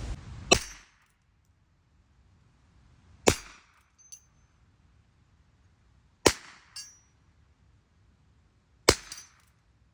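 Four shots from a Heritage Rough Rider single-action revolver firing .22 LR rounds, spaced about three seconds apart. The last three shots are each followed about half a second later by a faint metallic clink.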